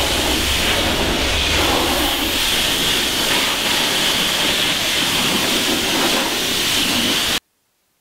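High-pressure car-wash lance spraying water onto a car, a loud steady hiss of the jet, stopping abruptly about seven seconds in.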